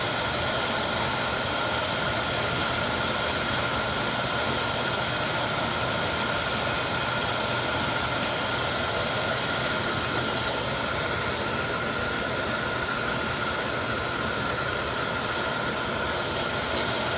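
Beckett oil burner firing steadily: a constant rushing of blower and flame with a steady high tone running through it. The burner's fuel pump has just been replaced, and the tech hears no more pump whine.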